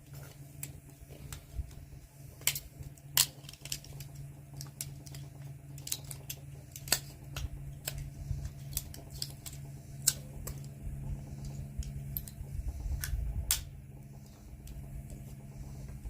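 Small brass and copper parts and hand tools clicking and clinking irregularly as pieces are pried and pulled out of a washing-machine motor, over a steady low hum.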